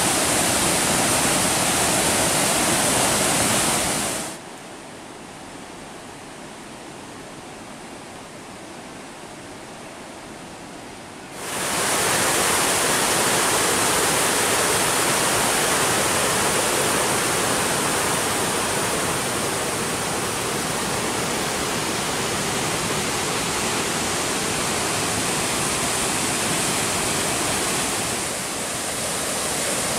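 Swollen creek rapids in flood after heavy rain, white water rushing over and around large boulders in a steady, loud rush. It drops to a much quieter rush from about four seconds in until about eleven seconds in, then returns at full strength.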